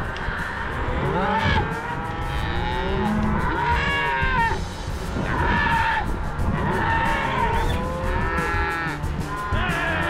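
A herd of cows and calves bawling, many calls overlapping one after another: cows and calves calling to find each other while they are mixed up and not yet paired.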